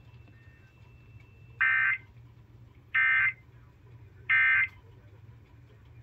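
Emergency Alert System end-of-message data bursts from a television speaker: three short buzzy digital squawks, about a second and a half apart, marking the end of the broadcast alert.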